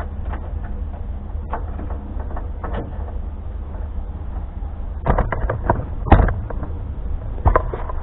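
Wind rumbling steadily on the microphone, with scattered light clicks and a cluster of knocks and rattles about five to six seconds in, then one more knock near the end, from hands working wiring in a truck's engine bay.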